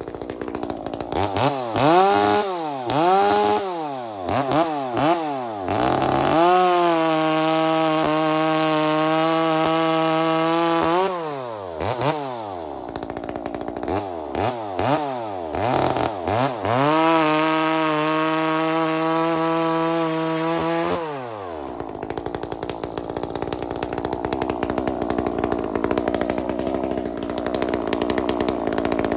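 Two-stroke chainsaw, an Echo CS-400 clone with a muffler mod and advanced timing, revved in quick blips, then held at high speed for about four seconds. It is blipped again and held high a second time, then drops back to idle for the last several seconds.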